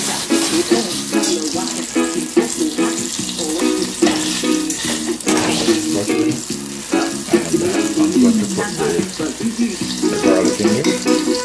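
Butter sizzling as it melts in a small saucepan on a gas burner, under louder background music with short repeating notes.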